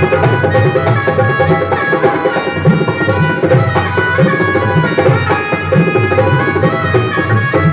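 Dholak playing Deepchandi taal with a keyboard holding sustained melody notes over it, a continuous devotional-style instrumental groove.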